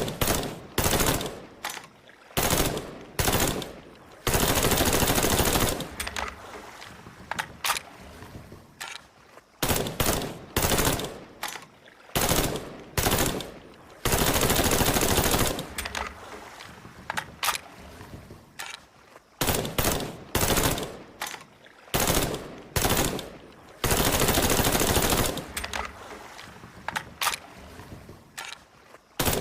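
Colt M16A1 5.56 mm rifle firing single shots and short bursts, then a sustained fully automatic burst of about two seconds. The same sequence repeats about every ten seconds, three times.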